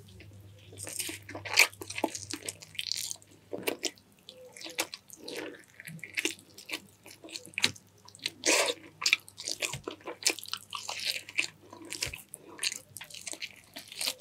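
Eating sounds: chewing and biting in irregular bursts.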